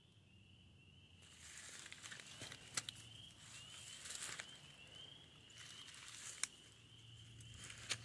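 Footsteps crunching through dry leaf litter and brushing past twigs, starting about a second in, with a couple of sharp snaps. Underneath, a faint high peep rising in pitch repeats about twice a second.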